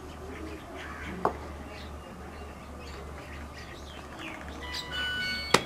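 Small birds chirping in the background, with one sharp tap about a second in and a sharp metallic clink with ringing near the end.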